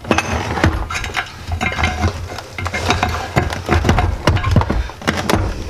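Steel combination wrench clinking and scraping against a rusty exhaust-flange bolt while it is worked back and forth, with many irregular metal clicks and knocks as the rusty pipe shifts on the wooden bench.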